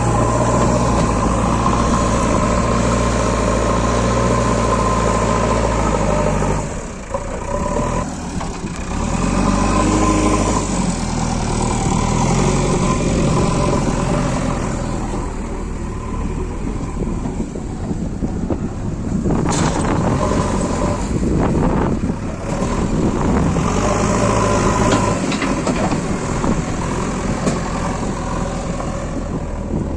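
Diesel engines of a backhoe loader and a tractor running under work, the engine note dropping about seven seconds in and picking up again a few seconds later, with a single sharp knock about twenty seconds in.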